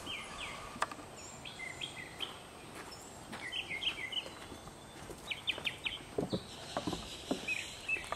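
Songbirds chirping, short quick high notes in clusters, against outdoor background noise. A few soft steps sound in the second half.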